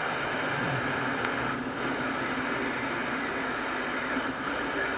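Hot air rework station blowing a steady stream of air onto a surface-mount chip, heating its solder to desolder it from the circuit board, with a single light tick about a second in.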